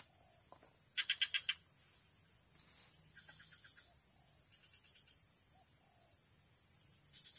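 A steady high insect drone, with a small animal's call over it: a quick run of five sharp chirps about a second in, repeated more faintly twice.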